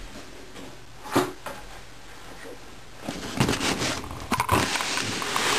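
Handling noises: a single knock about a second in, then a couple of seconds of rustling and scraping as a cardboard box is handled, with the replacement ballast taken from it.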